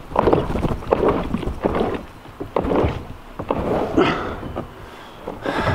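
Irregular dull knocks and rustling, about one or two a second: a person climbing into and settling in a kayak at the bank.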